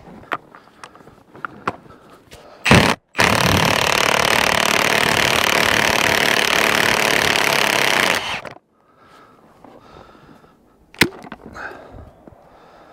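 Cordless impact wrench backing out the threaded hydraulic piston bushing of a Bobcat E50 excavator's X-Change coupler. A brief blip of the trigger, then about five seconds of continuous hammering that stops abruptly.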